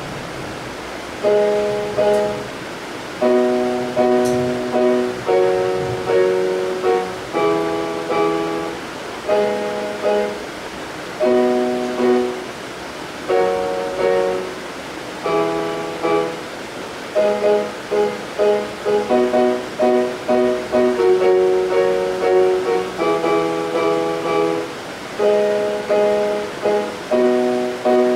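Background instrumental music: soft chords struck about once a second, each dying away, starting about a second in, over a faint steady hiss.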